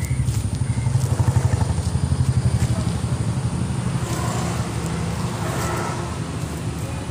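A motor engine running: a low, throbbing hum with a rapid, even pulse, loudest in the first couple of seconds and then steadier.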